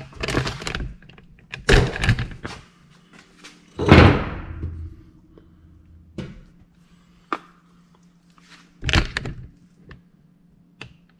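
Several irregular thuds and clunks, about five in all, the loudest about four seconds in, with a faint steady hum beneath.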